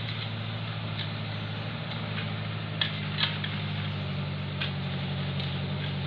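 An engine idling steadily, with scattered scrapes and clinks of shovels working loose soil, the sharpest two about three seconds in.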